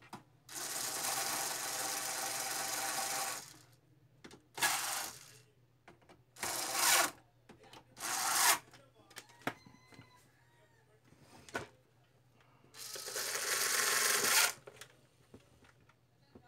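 A small electric power tool run in five short bursts, the first about three seconds long and the rest under a second to under two seconds, with faint clicks between them.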